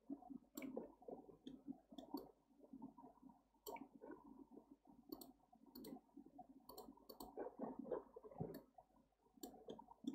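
Faint, irregular clicks with soft rustling: a computer mouse being clicked and moved on the desk while a 3D view is orbited.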